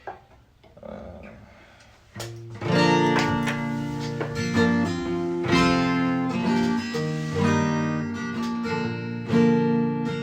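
Guitar strummed in sustained chords, starting about two seconds in after a brief quiet stretch: the instrumental intro of a song.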